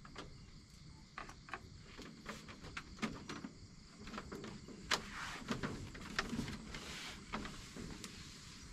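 Night insects and crickets chirping, with scattered light clicks and knocks throughout, the sharpest about five seconds in.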